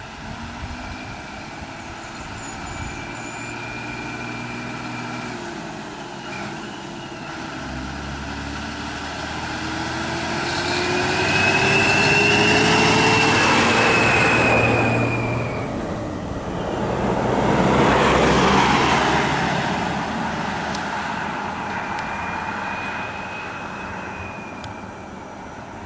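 Road traffic: vehicle engines running, with two vehicles passing close, one about halfway through and another a few seconds later, the first with an engine note rising as it approaches. A thin high whistle comes and goes three times.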